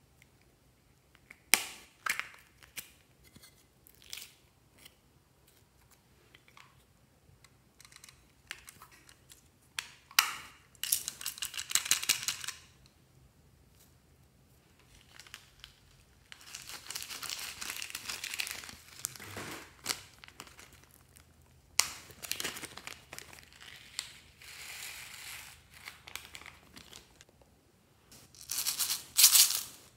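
Small plastic slime containers being opened and handled, with a few sharp clicks early on, then several spells of rustling noise as confetti, sequins and other add-ins are poured and sprinkled onto slime.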